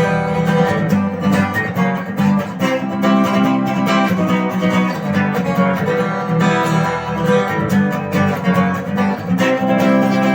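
Acoustic guitar strummed in a steady rhythm, playing an instrumental passage between sung verses.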